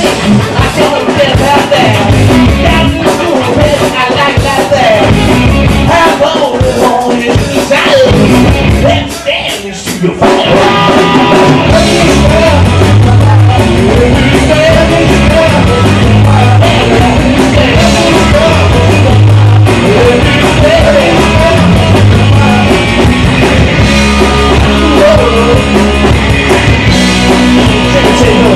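A rock band playing live and loud: electric guitars, drums and a singer. About nine seconds in the music drops back briefly, then the full band comes back in with a heavier low end.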